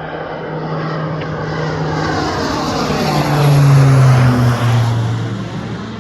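Propeller-driven airplane passing close by. Its engine tone swells to a peak about four seconds in, drops in pitch as it goes past, then fades.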